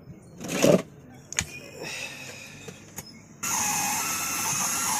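Faulty bass amplifier sounding through its speaker: a loud crackle about half a second in and a few clicks, then a steady harsh hissing buzz from about three and a half seconds. This is the unwanted noise of an amplifier whose one channel is barely playing.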